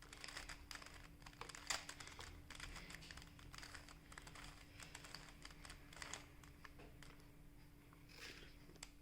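Faint, irregular plastic clicking of a Rubik's cube's layers being turned in quick succession as a move sequence is worked, over a faint steady hum.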